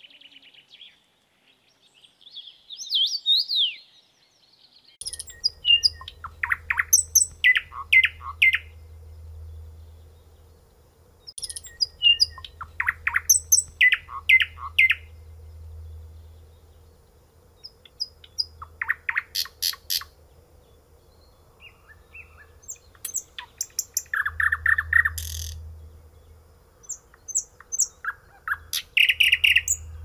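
A nightingale singing in about five loud phrases of rapid repeated notes and clicks, separated by short pauses, over a faint steady hum. Near the start a different, thinner bird chirps briefly.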